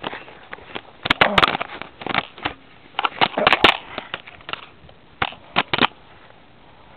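Crackling, scraping handling noise as the camera rubs against willow bark and denim during tree climbing. It comes in clusters of sharp crackles, starting about a second in and again near the end.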